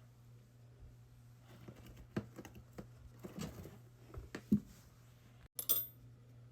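Hands handling squishy toys and packing materials: scattered light taps and clicks, then a brief crinkling near the end, over a faint steady low hum.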